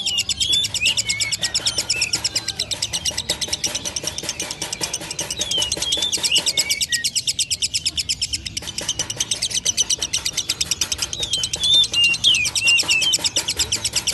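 Lovebird giving a fast, even trilling chatter of short notes, roughly ten a second, with squeaky rising and falling chirps over it at times, near the start, around the middle and again near the end: the ngekek trill that fanciers call a lovebird on the way to 'konslet'.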